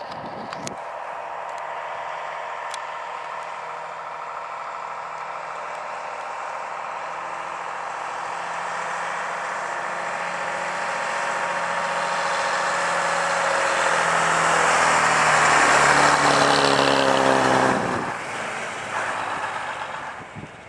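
Vintage double-decker bus engine running under load, growing steadily louder as the bus approaches. Its pitch falls sharply as it passes, about three-quarters of the way through, and then the sound drops away.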